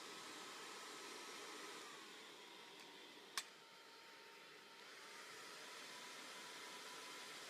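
Automatically swinging stand hair dryer running quietly with a steady rush of air and a faint whine; the whine drops in pitch about two seconds in and rises back about five seconds in. A single sharp click about three and a half seconds in.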